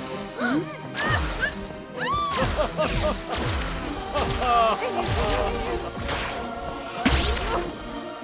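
Cartoon slapstick sound effects over background music: whooshes and several sharp whacks and crashes, the loudest about 1, 2 and 7 seconds in, with short squeaky sliding pitches in between.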